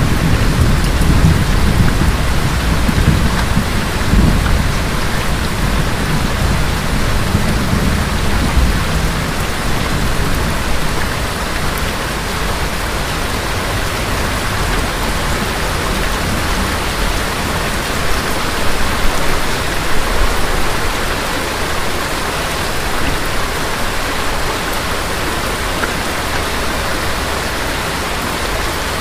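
Steady heavy rain, with a low rumble of thunder dying away over the first few seconds.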